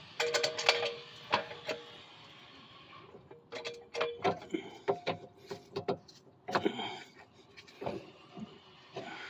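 Irregular metallic clicks and clinks of a hand wrench and the 17 mm nut on the sway bar link's threaded stud, in several short clusters, some clinks ringing briefly.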